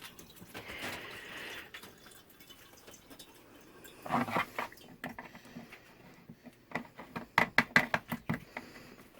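Tap water running into a bucket for a second or two, then stopping; after a pause, a short louder sound about four seconds in and a quick run of sharp knocks and clatter near the end.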